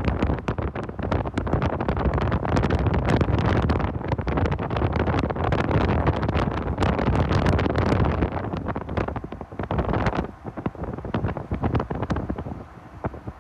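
Wind buffeting the phone's microphone from a moving vehicle, a loud gusty rumble with the vehicle's road noise underneath. It eases about ten seconds in and drops further near the end.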